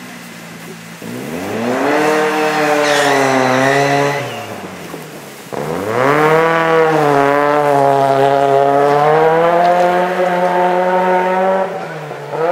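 Rally car engine at high revs: the pitch climbs about a second in, holds, then falls away near four seconds. A second run of hard revving starts abruptly about five and a half seconds in and holds high until near the end.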